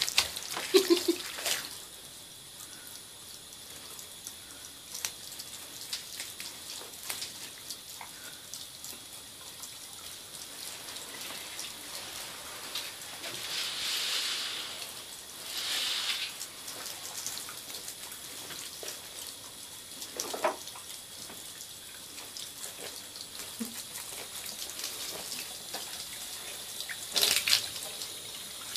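Thin stream of shower water running into a bathtub, a steady faint trickle and splash, which swells louder twice around the middle. A few sharp knocks come near the start and near the end.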